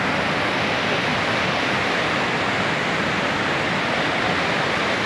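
Muddy floodwater rushing past in a fast torrent, a steady, even rush of water.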